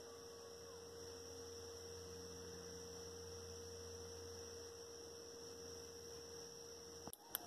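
Faint steady hum with a high, steady whine above it. A coyote howl trails off in a falling pitch within the first second, and a sharp click comes near the end.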